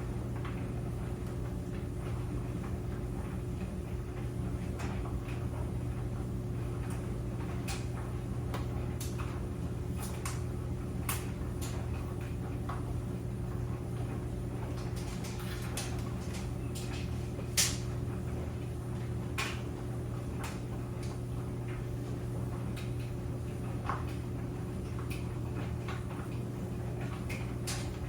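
Clothes dryer running: a steady hum with irregular light clicks and knocks, one sharper click a little past the middle.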